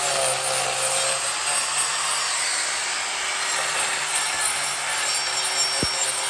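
Handheld angle grinder with a disc running steadily and grinding against wood as it shapes a carving.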